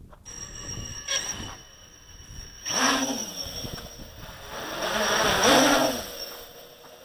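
Quadcopter's brushless motors and propellers whining, surging loudly and changing pitch with bursts of throttle about three seconds in and again around five to six seconds in.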